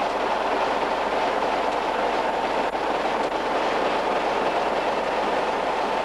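Class 25 diesel locomotive's Sulzer six-cylinder engine running steadily.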